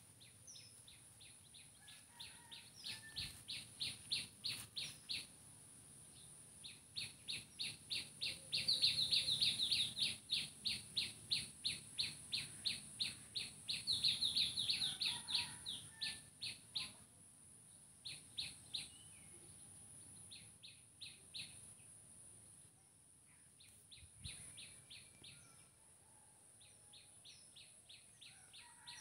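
A small bird chirping one high note over and over, about three times a second, in long runs that are loudest in the middle stretch.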